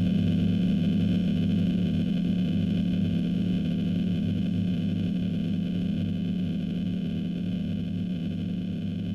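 Background music: a steady low drone that slowly fades.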